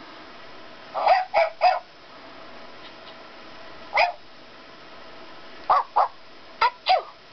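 Barbie Vet Pet electronic plush puppy playing recorded puppy barks when its back button is pressed: three short yips about a second in, a single one around four seconds, then two quick pairs near the end, some dropping in pitch.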